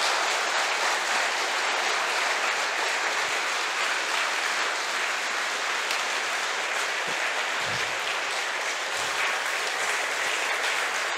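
A large congregation applauding steadily.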